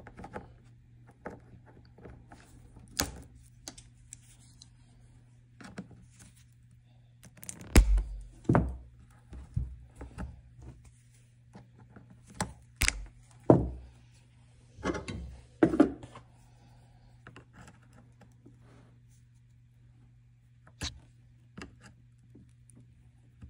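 Side cutters snipping plastic zip ties off the hose connections of an outboard oil tank's in-line filter: scattered short clicks and snips, with hose and plastic tank being handled and a few louder thumps. A faint steady low hum runs underneath.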